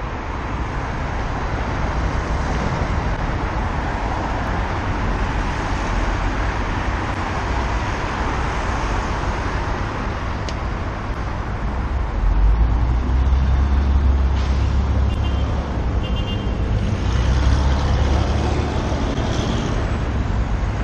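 Road traffic passing on a wide city street: a steady rush of car engines and tyres, with a deeper rumble swelling past the middle.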